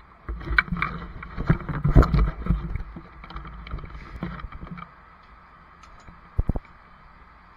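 Rustling, rubbing and knocking right at a body-worn camera's microphone as it is handled and turnout gear is reached for on a rack. The noise dies down after about five seconds, and a couple of sharp knocks follow about six and a half seconds in.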